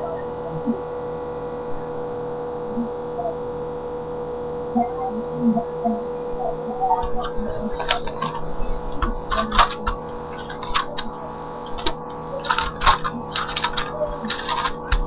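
Steady electrical hum with a fixed tone. From about halfway through, irregular scratchy rustles and clicks come in and out.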